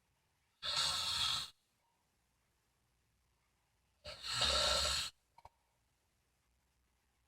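Elderly woman snoring in her sleep: two loud, airy snoring breaths about a second long each, roughly three and a half seconds apart, with quiet between.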